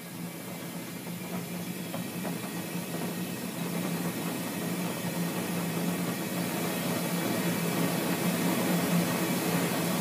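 Homemade naturally aspirated propane foundry burner, black-iron pipe with a MIG-tip gas jet, firing an open flame. It gives a steady rushing hiss and grows steadily louder as the propane pressure is turned up, running without forced air at a heat enough to melt aluminum.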